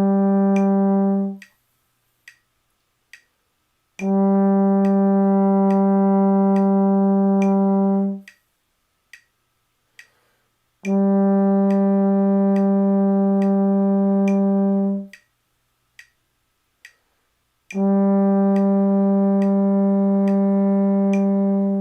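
Trombone playing long sustained tones, each held about four beats and then cleanly stopped, with short rests for breath between them, over a steady metronome ticking at about 70 beats a minute: a breathing and sound-emission long-tone exercise.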